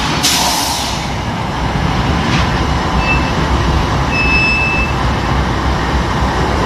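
CSX diesel-electric freight locomotives running with a steady low rumble. Two short high-pitched beeps sound around the middle.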